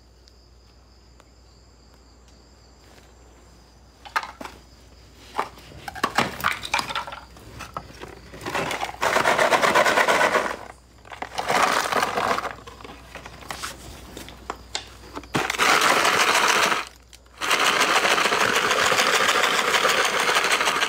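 A few seconds of quiet room tone, then scattered clicks and scrapes of debris being moved, then long spells of loud crackling rattle as a plastic bottle is grabbed and shaken.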